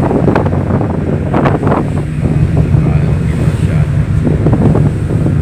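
Wind buffeting the microphone in irregular gusts, over the steady low drone of a roll-on/roll-off ferry's engines.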